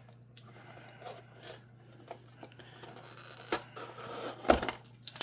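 Hands opening a small cardboard mystery box and handling the packaging inside: rubbing, scraping and scattered clicks, with one sharp loud click about four and a half seconds in. A steady low hum runs underneath.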